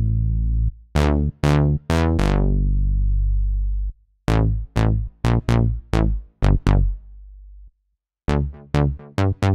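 Synapse Audio Obsession software synthesizer, an Oberheim OB-Xa emulation, playing a low bass riff of short plucked notes. Each note starts bright and quickly turns dull. One note is held for a couple of seconds, and the riff stops briefly near the end before starting again.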